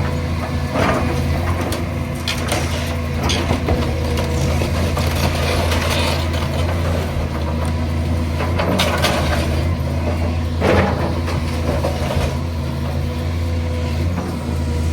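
Diesel engine of a demolition excavator running steadily under load, with irregular cracks and knocks of timber and debris breaking as the house is pulled down; the loudest crack comes near the end.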